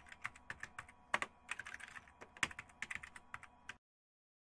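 Computer keyboard typing: a quick, irregular run of keystroke clicks that stops abruptly near the end.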